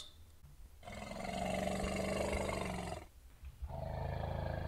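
Two long roars of a large animal, each about two seconds, with a short gap between them; the second carries on past the end.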